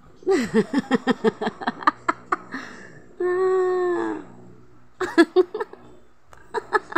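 A person giggling in quick runs of short bursts, with one held, slightly falling note of about a second in the middle.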